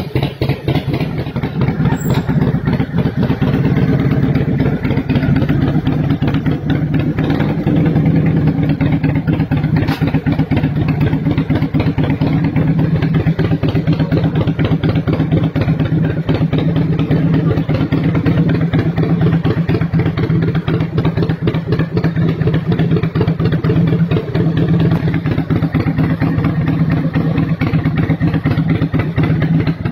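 Harley-Davidson Heritage Softail Twin Cam V-twin idling steadily through a handmade full-system fishtail exhaust.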